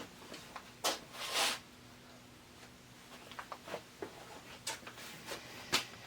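Small plastic pinball pop bumper parts being handled and fitted together: scattered light clicks and taps, with a brief scrape about a second in.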